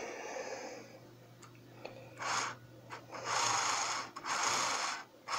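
Small electric motor and gear train of a Piko HO-scale BR 80 steam locomotive model running on a test track in three short spurts, starting about two seconds in. This is a test run just after its gears were greased.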